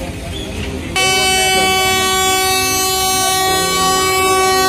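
Train horn: an Indian Railways locomotive's air horn sounding one long steady blast that starts about a second in, over crowd voices.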